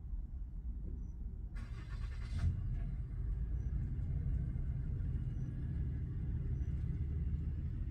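Low, steady rumble of idling and passing vehicle engines around a truck stop, growing a little louder a couple of seconds in, with a short hiss lasting just under a second about a second and a half in.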